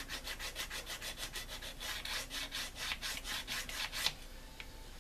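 A sanding stick rubbing quickly back and forth on the edge of a plastic model-kit wing panel, about six strokes a second, smoothing off a nub so the part is clean for fitting. The strokes stop abruptly about four seconds in.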